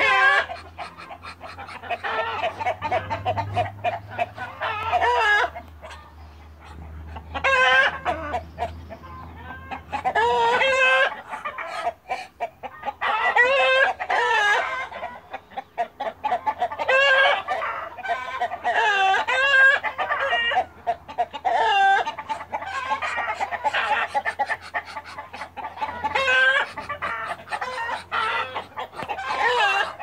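Chickens clucking and a rooster crowing, with calls repeating over and over.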